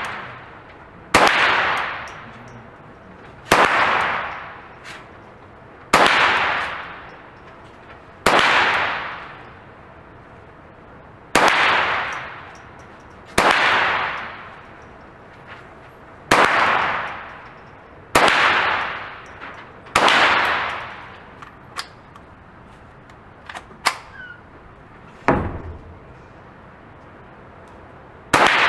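A .22 LR semi-automatic rifle, the CBC 7022 (Mossberg 702 Plinkster), is fired nine times at a steady pace of about one shot every two to three seconds, each sharp crack trailing off in an echo. A pause follows with a few small clicks and a dull knock, then one more shot at the very end.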